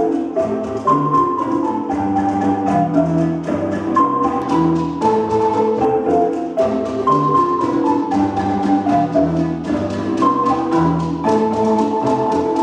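Ensemble of Zimbabwe-style marimbas, from treble down to bass, playing an interlocking pattern over a deep bass line. The pattern repeats about every three seconds.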